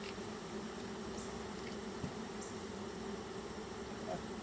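A mass of honeybees buzzing steadily, a low even hum, as the colony crawls over and into a hive box.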